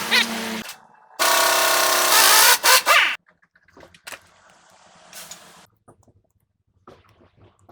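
Truck horn sounding for about two seconds, ending in two short honks. Faint scattered clicks follow.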